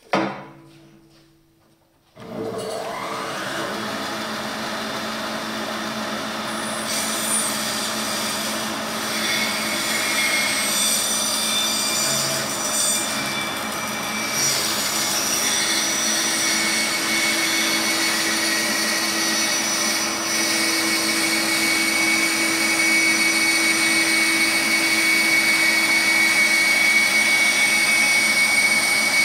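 Laguna bandsaw running and cutting through a thick wooden block: a steady whirring hiss of the blade in the wood that grows a little louder toward the end. It opens with a sharp knock, and the saw noise comes in suddenly about two seconds in.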